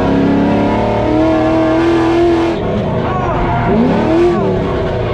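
LS1 V8 engine of a drift-built Nissan 240SX S13 revving hard, heard from inside the caged cabin, its pitch holding and then rising and falling several times with the throttle, over a haze of tire noise.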